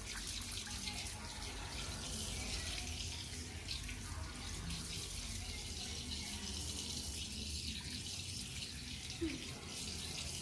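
Water running steadily from a tap into a sink during hand washing.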